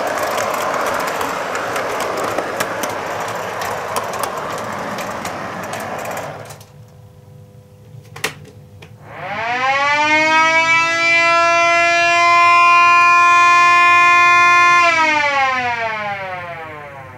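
Model train rolling along the track with a busy clatter, stopping about six seconds in. A click follows, then a siren winds up, holds a steady wail for about five seconds and winds down.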